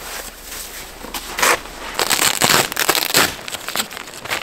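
Snow being dug and crunched, then from about two seconds in a quick series of crackly, rustling scrapes of stiff tent fabric as the tent's vent flap is handled.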